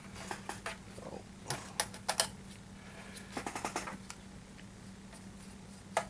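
Scattered light clicks and taps of disassembled PS5 cooling parts (heatsink and metal frame) being handled on a work mat, with a cluster about three and a half seconds in, over a faint steady hum.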